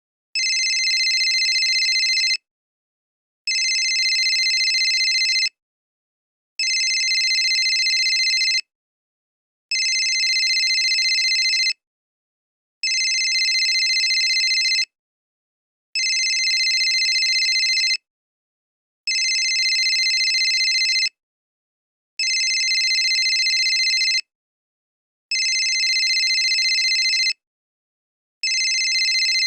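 Old cell phone ringing with a high electronic ring tone: steady two-second rings with about a second of silence between them, repeating about ten times.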